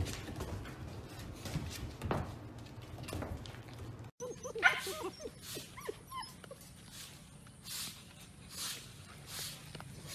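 Husky puppies whimpering and yipping in short, high, wavering calls, with scuffling and small knocks as they play. The loudest is a short squeal about halfway through.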